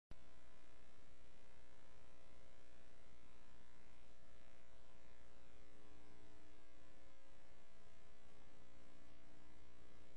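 Steady electrical hum and buzz made of several constant tones at once, with no music or speech audible.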